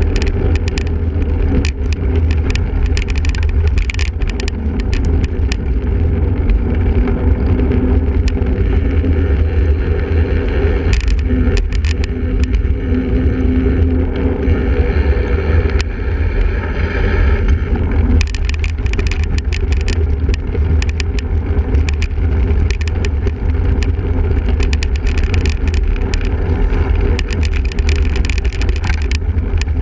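A single-speed cyclocross bike ridden over rough ground: a steady rumble of wind on the microphone, with frequent clicks and rattles from the bike.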